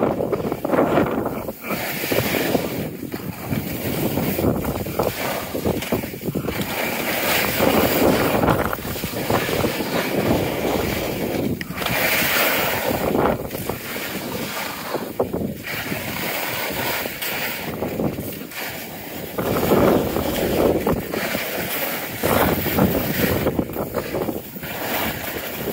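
Wind buffeting the microphone, mixed with the hiss and scrape of sliding down wind-packed snow. It swells and eases every few seconds.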